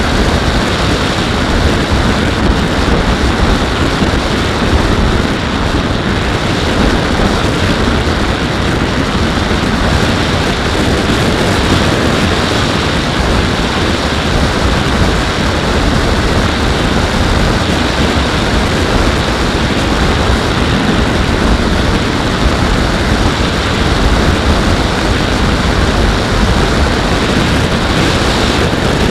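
Skywalker X-8 flying wing in steady cruise, heard from its onboard camera: a constant loud rush of airflow over the microphone mixed with the pusher propeller's drone, with no change in throttle.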